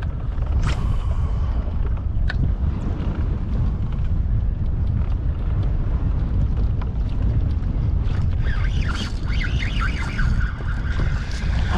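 Wind buffeting the microphone: a steady low rumble, with a few sharp clicks and a stretch of splashy rustling near the end.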